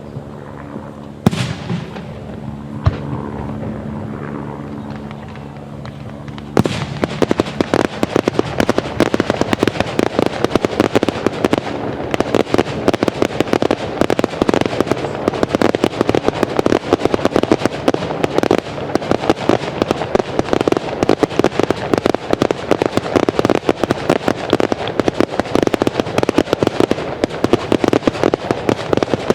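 Fireworks display: two sharp bangs in the first few seconds over a low steady hum, then from about six seconds in a dense, continuous barrage of rapid crackling bangs.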